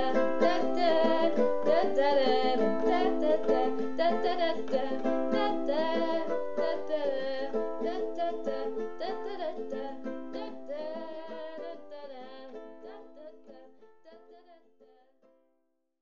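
Strummed ukulele with a wordless "da da da" vocal line over it, the whole fading out gradually to silence near the end.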